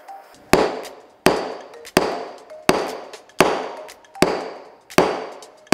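Wooden Japanese marking gauge (kebiki) knocked end-first on a wooden workbench, a run of sharp, evenly spaced knocks a little under a second apart. The tip of the beam is being tapped to fine-adjust the gauge's setting.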